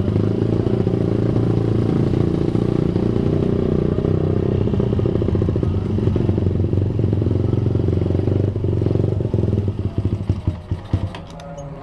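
Motorcycle engine running as the bike rides slowly along a lane, a steady low drone. Near the end the engine sound falls away as the bike comes to a stop, with a few light clicks and knocks.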